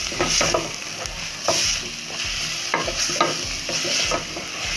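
Chopped spinach frying in oil in a metal pot with a steady sizzle, while a wooden spoon stirs it and scrapes across the pot several times.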